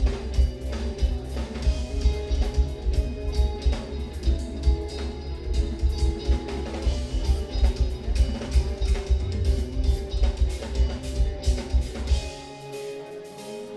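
Live instrumental progressive metal (djent): eight-string electric guitars over a drum kit with a fast, dense kick-drum pattern. About twelve seconds in the drums and low end drop out, leaving guitar notes ringing on their own.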